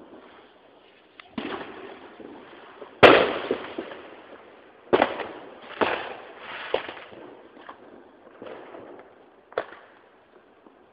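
Fireworks going off in a series of sharp bangs, each trailing off, with smaller cracks in between. The loudest bang comes about three seconds in.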